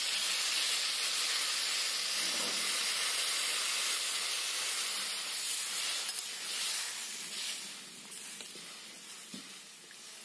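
Water poured into a wok of green papaya and potato pieces frying in hot oil, hissing and sizzling steadily as it hits the oil. The hiss dies down over the last few seconds.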